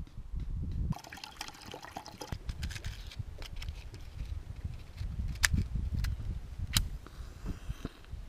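Water dripping and trickling off a freshly caught bass as it is held and unhooked by hand, with two sharp clicks in the second half.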